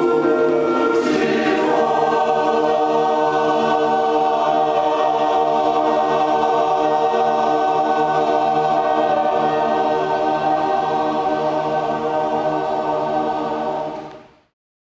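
Men's chorus singing, moving to a new chord about a second in and then holding one long sustained chord, which fades out quickly near the end.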